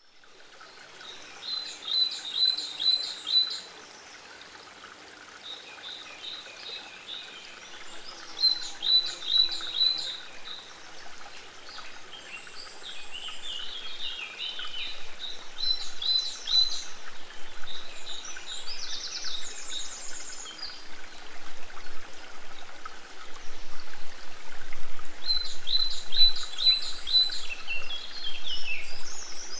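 Field recording of songbirds singing short phrases every few seconds, some of them quick trills, over the steady flow of a small woodland stream. It fades in at the start.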